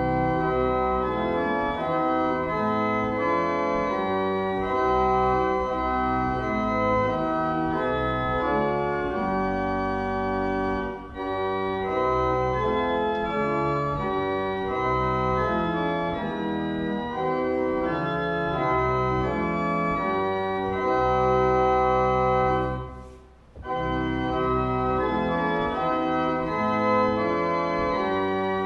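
Organ music of slow, sustained chords, with one short break in the playing late on.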